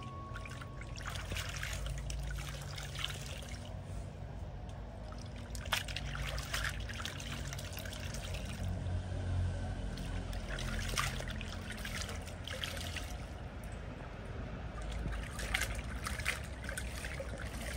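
Clothes being hand-washed in a plastic basin of water: irregular splashing and sloshing as garments are swished, lifted and wrung, with water streaming and dripping back into the basin, over a low steady rumble.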